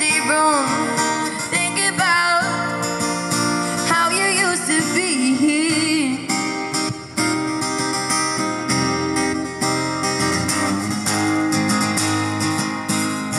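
A woman singing with vibrato over a strummed steel-string acoustic guitar. About halfway through, the voice stops and the guitar keeps strumming alone.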